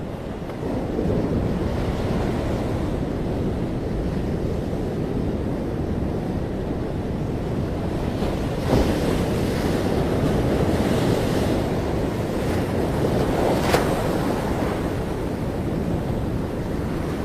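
Ocean surf washing onto a beach, a continuous low rush of breaking waves with wind buffeting the microphone. Two brief sharp clicks stand out, about nine and fourteen seconds in.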